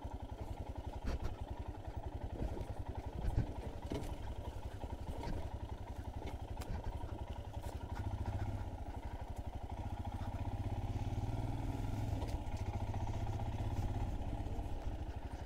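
Royal Enfield Himalayan 411's single-cylinder engine running steadily as the motorcycle rolls down a rough dirt trail, with a few sharp knocks and rattles from the bike over the bumps.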